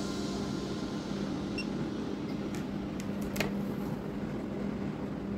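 Steady background hum and hiss, like a room fan or air conditioner, with a few faint clicks a little past the middle.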